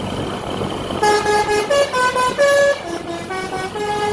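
Bus telolet horn, a basuri multi-tone musical horn, playing a quick melody of short held notes that jump up and down in pitch. It starts about a second in, over the low rumble of engines and traffic.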